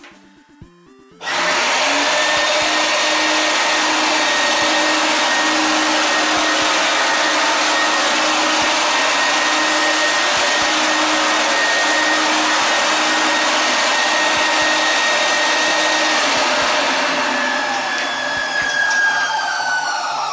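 1988 Numatic WVD 750 twin-motor industrial vacuum cleaner switching on about a second in and running steadily with a whine. Near the end the motor pitch falls as it winds down.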